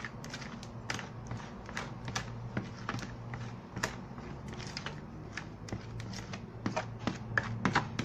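Spatula stirring thin flour-and-sugar batter in a plastic bowl, making irregular clicks and scrapes several times a second that grow a little louder near the end. A low steady hum runs underneath.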